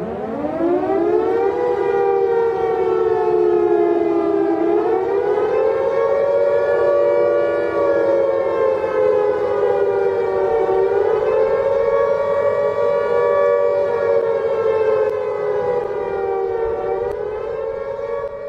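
Civil defence siren winding up over about a second and a half, then holding a loud wail on two close pitches that slowly wavers up and down.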